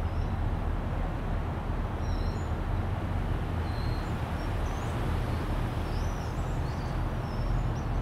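Scattered short, high chirps and whistles from a large flock of small birds wheeling overhead, over a steady low background rumble.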